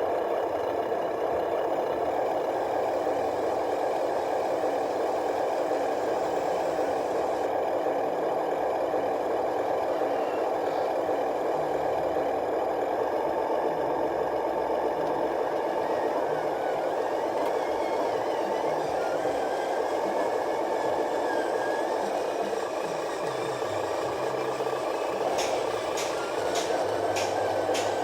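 Remote-control 12-wheel truck running steadily, its motor noise thick and fluttering, with a quick series of sharp clicks near the end.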